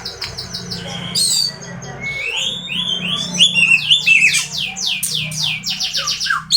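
Oriental magpie-robin (kacer) singing a fast, varied song of whistled sweeping notes and rapid repeated phrases, busiest and loudest from about two seconds in. A low steady hum runs underneath.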